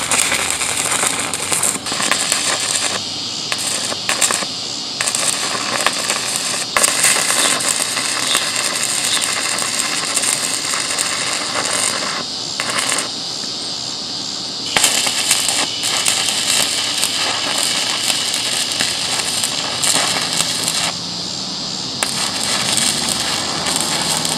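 Electric arc welder crackling and sizzling as it welds steel, in several runs broken by short pauses.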